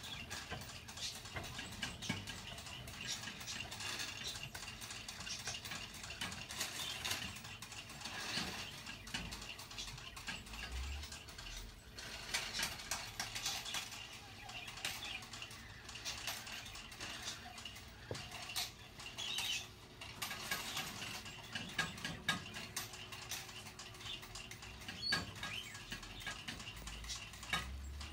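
Lesser and greater Egyptian jerboas scrabbling and hopping about in sand and hay bedding: a continuous run of quick, irregular scratches and ticks.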